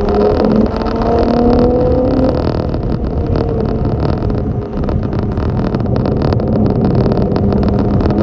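A vehicle engine running under heavy rushing noise, its pitch climbing slowly several times as it accelerates.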